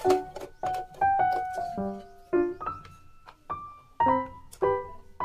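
Background music: a piano playing a melody of separate notes, a few a second.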